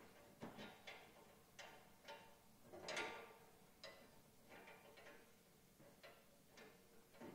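Faint, scattered clicks and light metallic taps, about ten over several seconds, from the metal parts of a stainless-steel camp kitchen being handled and fitted.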